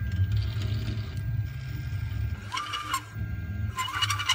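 Stepper motors of a Mostly Printed CNC pen plotter whining in two short bursts as the head moves, about two and a half and four seconds in. Each burst rises in pitch as the motors speed up and falls as they stop, over a steady low hum.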